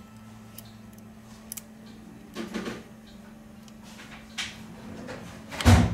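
Tweezers and fingers handling an opened smartphone's circuit board: a few soft scrapes and knocks over a steady low hum, with a heavier thump near the end.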